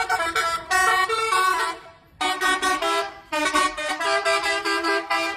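Bus telolet horn, a multi-tone air horn, playing a quick melody of stepped notes. It plays in three loud phrases, with short breaks about two seconds in and about three seconds in.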